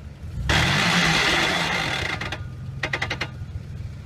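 Mitsubishi Pajero's engine idling, then revved about half a second in, with a loud hiss of wheels spinning in loose dirt for nearly two seconds, followed by a quick run of sharp clicks near three seconds before it settles back to idle. The wheels spin without traction: the 4x4 is stuck on a steep climb with a wheel in the air.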